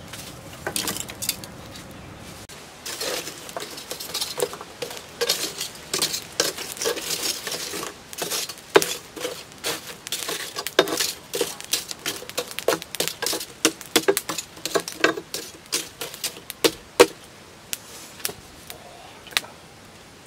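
Lumps of hardwood charcoal clinking and knocking against each other and the clay stove as they are stirred with tongs. A dense run of sharp clicks thins out to a few near the end.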